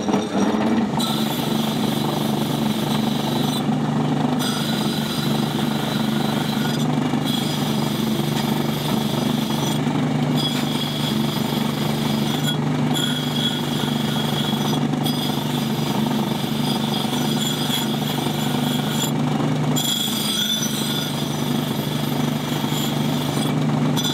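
Bench grinder running with a steel plaque held against its spinning wheel to brighten the freshly hot-stamped metal: a steady motor hum under a dense rushing hiss of the wheel on steel. The hiss breaks off briefly several times while the motor hum runs on.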